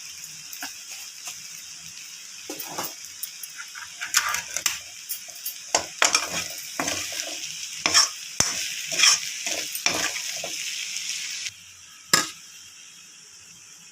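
Spicy vegetable pasta sizzling in a pan while a spoon stirs it, scraping and clinking against the pan. The sizzle drops away suddenly near the end, and one last clink follows.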